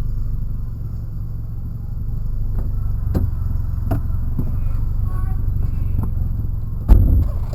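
Motor vehicle engine running with a steady low rumble, with several sharp knocks about halfway through and a loud thump near the end.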